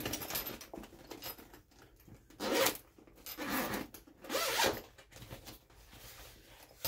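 Zipper of a soft toy pet-carrier bag being pulled open in three short rasps about a second apart.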